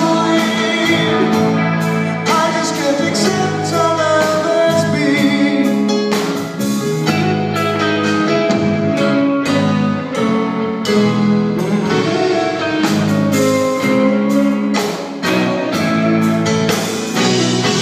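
Live rock band playing a slow ballad: a gliding lead melody over electric guitar, bass and drums, recorded from the audience in a concert hall.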